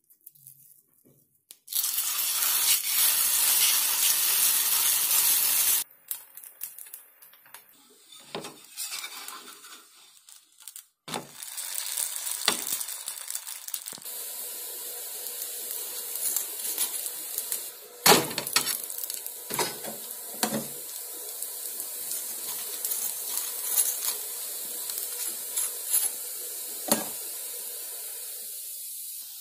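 Rice-flour roti cooking on a hot iron tawa: a steady sizzling hiss with scattered sharp knocks of a utensil against the pan. A couple of seconds in, a louder hiss lasts about four seconds and cuts off suddenly.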